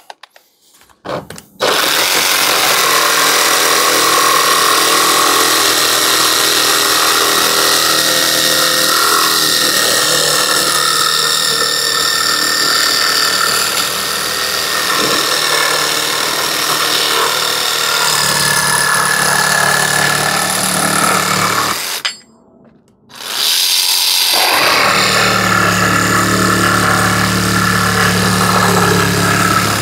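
Parkside PSSSA 20 Li B2 cordless 20 V jigsaw/sabre saw cutting through a piece of metal. It starts about a second and a half in and runs steadily, stops for about two seconds a little over two-thirds of the way through, then cuts again.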